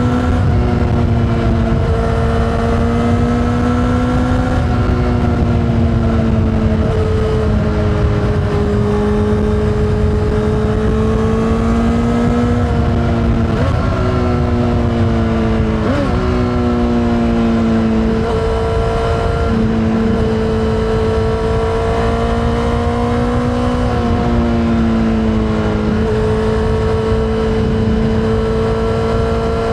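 Honda CBR600RR inline-four with an Akrapovič exhaust, running under way at steady high revs. The engine note rises and falls gently with the throttle and drops sharply and recovers three times, about halfway through, a few seconds later and again near the end. A steady rush of wind noise sits underneath.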